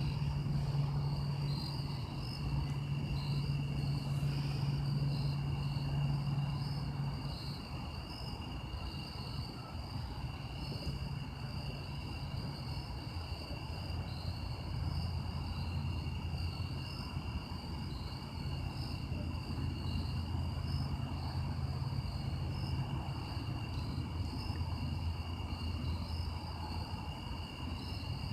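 Outdoor insects calling in a steady chorus of high trills. Under them runs a low steady hum, likely a distant motor, which drops in pitch about a quarter of the way through.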